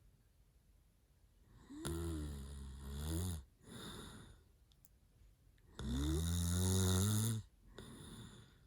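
A sleeping man snoring: two long, loud snores about four seconds apart, each followed by a softer, shorter breath.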